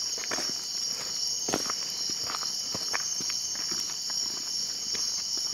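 A steady, high-pitched chorus of night insects, crickets or the like, with scattered footsteps on the path.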